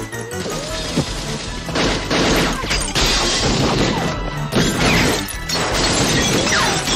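Repeated crashing and smashing in several long waves, over a dramatic action-film music score.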